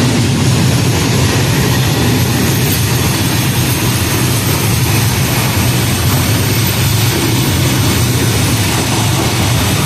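PKP EP07 electric locomotive drawing a passenger train into the station, giving a loud, steady drone that is strongest in a low hum.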